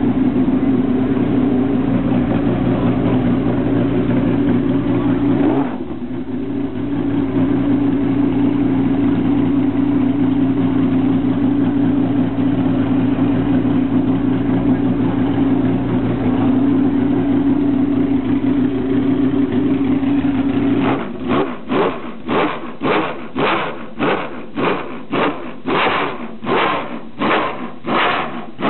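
1970 Ferrari 512M's V12 racing engine running at a fast, steady idle, briefly sagging about six seconds in. About twenty-one seconds in the steady note gives way to a rhythmic pulsing, about two beats a second.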